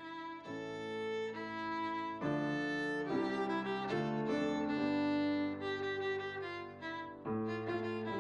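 Instrumental background music with sustained, overlapping notes that change every second or so.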